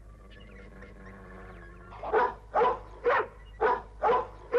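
A cartoon guard dog growling low, then barking in a steady run of about two barks a second from about two seconds in.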